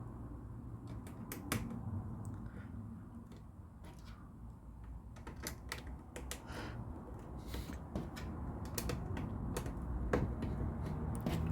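LEGO plastic pieces being handled and pressed together: irregular sharp clicks and snaps, a few louder than the rest, over a low steady rumble.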